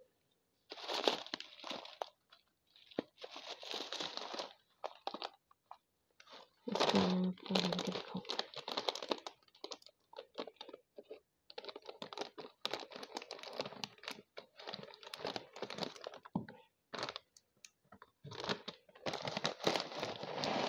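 Crinkling and rustling of a shiny plastic packet of banslochan as it is handled and opened, in irregular bursts with short pauses between them.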